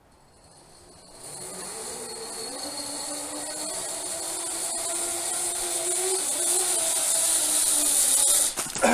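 Zipline trolley pulley running along the steel cable: a whirring hiss with a thin high whine that grows steadily louder as the rider comes down the line. A few knocks come near the end as the ride stops.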